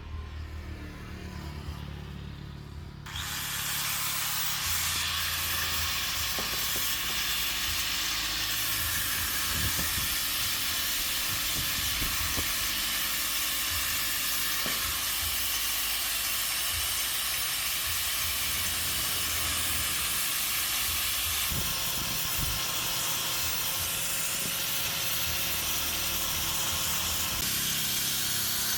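A steady, loud hiss of air or spray that starts suddenly about three seconds in, with a few faint knocks underneath.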